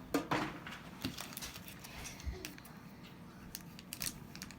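Light handling noises of paper and plastic packaging: scattered small clicks and rustles as items are picked up and set down, with a soft low thump a little after two seconds in.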